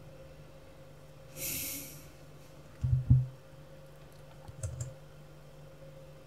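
Computer keyboard and mouse use carrying through the desk into the microphone as dull knocks: two heavy ones about three seconds in and a lighter cluster with small clicks near five seconds. Before them comes a short hiss, and a faint steady electrical hum runs underneath.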